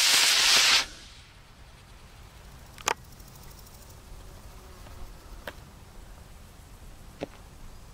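Estes model rocket motor's thrust hiss, which cuts off sharply under a second in as the motor burns out. Then a quiet background broken by three sharp clicks a couple of seconds apart.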